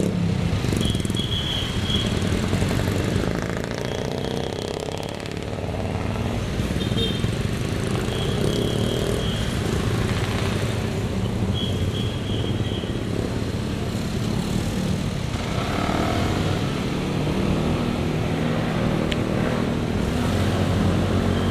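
Motorcycle engine running at low speed, a steady low hum with street traffic around it. Short high-pitched tones come and go in the first half.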